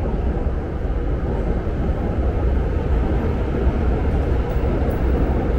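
Background noise of a large railway station concourse: a steady low rumble with a dull hiss over it, no single event standing out.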